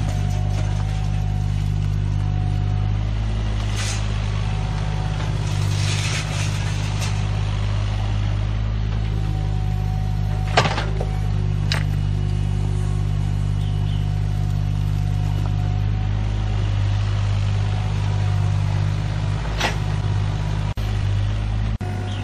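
Mini excavator's diesel engine running steadily while the bucket digs through soil and brick rubble. A few sharp knocks of the bucket against bricks stand out, and a short stretch of scraping rubble comes about six seconds in.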